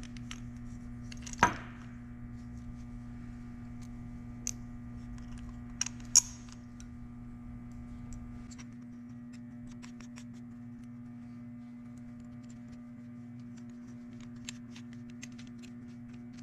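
Scattered light clicks and metallic taps from small engine parts and hand tools being handled, with two sharper clicks about a second and a half and six seconds in, over a steady low hum.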